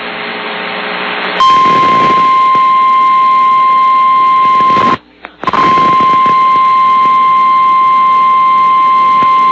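A burst of static-like noise, then the Emergency Alert System attention signal: a single loud, steady alert tone of about 1 kHz, the weather-radio 1050 Hz alarm. It drops out once for about half a second near the middle and then resumes. The tone is the alarm that announces a broadcast emergency alert, here a tornado warning.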